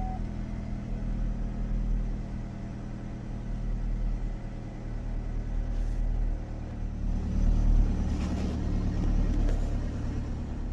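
Car running: a steady low engine and road hum that swells slightly about eight seconds in.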